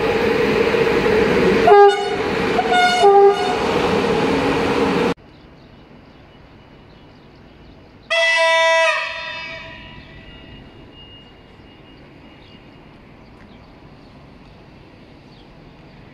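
A train running loud with two short horn blasts, a couple of seconds apart. It cuts off abruptly to quiet background, and a few seconds later a single horn toot sounds and fades out.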